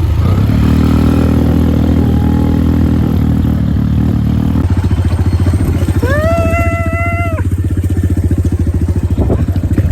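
Motor vehicle engine running steadily on a rough off-road climb. Its note changes about halfway to a rapid even pulsing. A brief high-pitched shout rises and holds for about a second around six seconds in.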